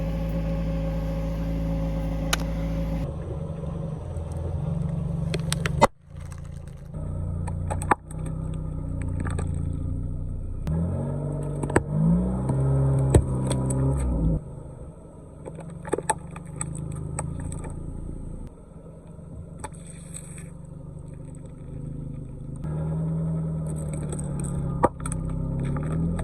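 Car engine running low and revving up and down as the car rolls slowly over things, with several sharp pops and cracks from what is being crushed under the tyres.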